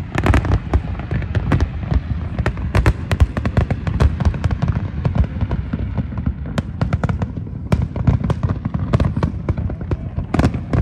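Fireworks display at full intensity: a rapid, overlapping barrage of cracks from aerial shells bursting, over a continuous low rumble of booms.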